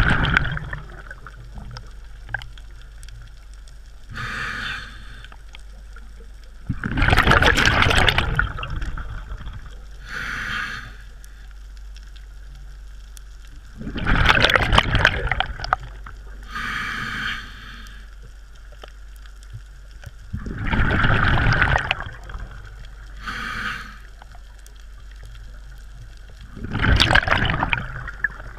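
A scuba diver breathing through a regulator underwater: a short hiss of air drawn through the demand valve, then a longer, louder gush of exhaled bubbles. The cycle repeats evenly about every seven seconds.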